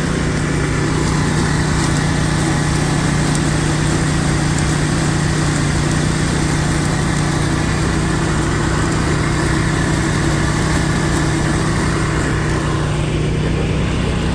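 Gold ore milling machinery running steadily: a loud, constant mechanical drone with a steady low hum and no change in pace.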